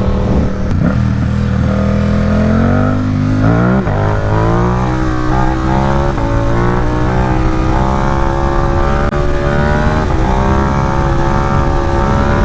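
Ducati SuperSport 950 S's 937 cc L-twin engine pulling hard under throttle. The pitch climbs steeply for a couple of seconds, breaks and drops about four seconds in, then keeps climbing more slowly, as when accelerating up through the gears.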